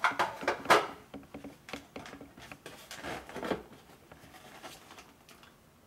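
Light clicks, taps and rubbing of things being handled on a table, in a small room, louder in the first second and again about three seconds in, then dying away.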